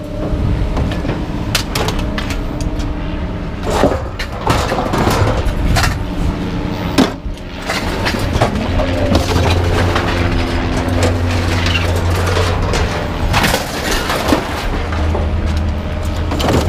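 Pieces of scrap clanking and knocking as they are handled and tossed, a dozen or so sharp hits spread through the stretch, over a steady low hum.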